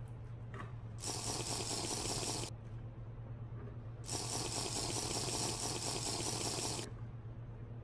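Two long slurps through a drinking straw from a large plastic fountain-drink cup, a hissing, gurgling draw of air and liquid. The first starts about a second in and lasts a second and a half; the second, longer one runs nearly three seconds, over a steady low hum.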